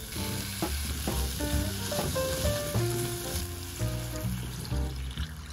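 Sliced onions sizzling as they fry in a nonstick pot, stirred with a spatula. A little over halfway through, water is poured in and the sizzle dies down.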